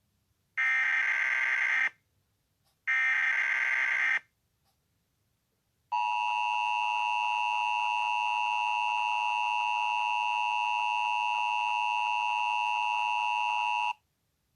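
Emergency Alert System tones: two short bursts of warbling digital data noise, the SAME header, then the steady two-tone EAS attention signal (853 and 960 Hz together) held for about eight seconds before cutting off, announcing an emergency bulletin.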